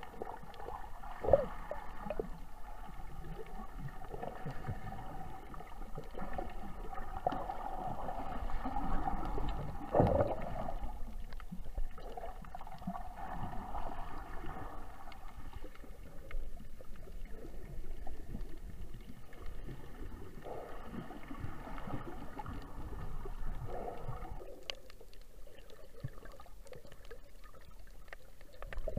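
Underwater ambience heard by a submerged snorkelling camera: muffled water movement and gurgling, with a sharp knock about a second in and a duller one around ten seconds in. A faint steady hum of several tones runs underneath and fades out near the end.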